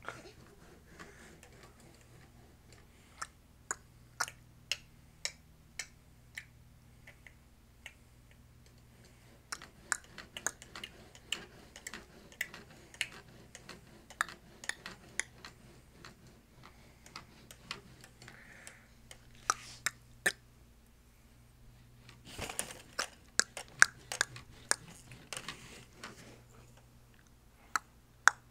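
Irregular sharp plastic clicks and taps from a baby's doorway jumper and its tray toys as the baby bounces and plays. They are sparse at first, come a few a second later on, and are thickest about three quarters of the way through.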